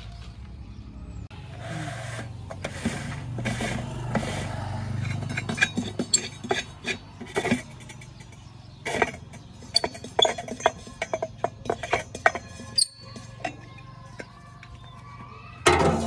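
Plastic clicks and knocks of hands handling the clear dome of a JCB backhoe loader's air-intake pre-cleaner, in quick irregular runs, with a louder knock near the end, over a steady low hum.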